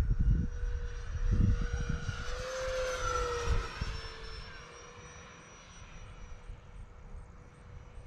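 Electric ducted fans of a Freewing A-10 RC jet whining as it passes, the sound swelling and rising in pitch about two to three seconds in, then dropping and fading away. Wind rumbles on the microphone in the first couple of seconds.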